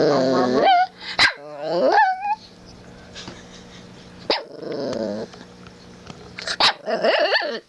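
Shih Tzu puppy vocalizing as she gets drowsy: about four drawn-out grumbles and whines, some sliding up in pitch at the end.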